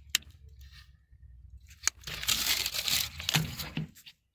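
Sharp click right at the start and another just before two seconds in, followed by about two seconds of loud crinkling and rustling of plastic being handled.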